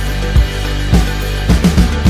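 Background music with a steady drum beat over a sustained bass, with a quick drum fill near the end.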